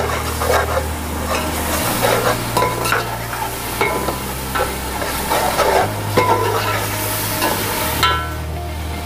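A ladle stirring and scraping through a frying masala of tomatoes, yogurt and spices in a metal pot, with the hot oil sizzling steadily: the yogurt has just gone into the frying masala.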